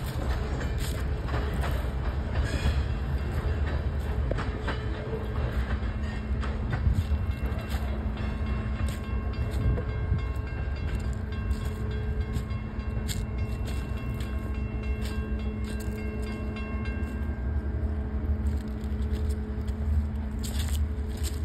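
CSX freight train of tank cars rolling past on the rails: a steady low rumble of the cars, with sharp clicks from the wheels and a faint steady whine through the middle.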